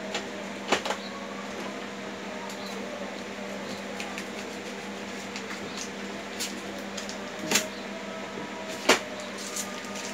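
Hands handling a new Epson L565 ink tank printer: a few sharp plastic clicks and knocks, one about a second in and two more late, with smaller ticks between, over a steady background hum.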